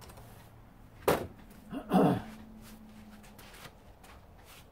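Gloved hands handling copper scraps on a stainless steel workbench: a sharp knock about a second in, then a louder scraping clatter with a falling pitch around two seconds in.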